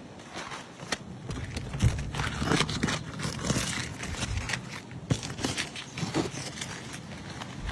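Asphalt roof shingles being lifted upward, with irregular crackling, clicking and scraping as they are worked loose.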